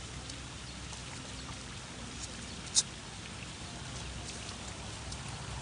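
Lamb sucking milk from a feeding bottle: faint slurping with scattered small clicks, one sharper click about three seconds in, over a low steady hum.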